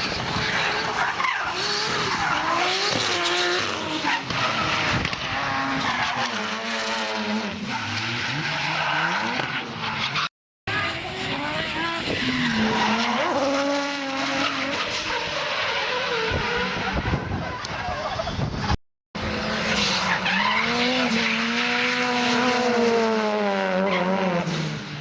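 Drift cars at full throttle, engines revving up and down while the tyres squeal and skid, with two brief dropouts where clips are cut together. Near the end one engine's revs fall away steadily.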